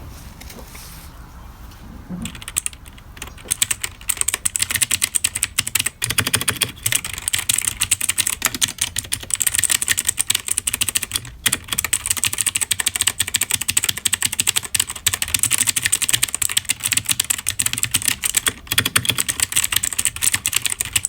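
Computer keyboard being typed on quickly, a dense clatter of key clicks that starts about two seconds in and keeps going.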